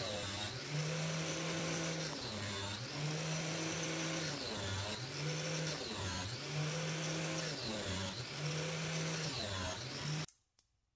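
Angle grinder running against stainless steel rod, its motor whine dropping in pitch each time it is pressed into the steel and recovering about every two seconds, over a steady grinding hiss. It cuts off suddenly a little after ten seconds in.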